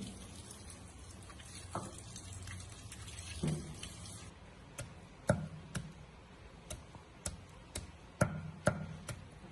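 Tap water running over a papaya being rinsed in a stainless steel sink, with a few knocks of handling. After about four seconds the water stops and a cleaver chops chilies on a wooden board, about two strikes a second.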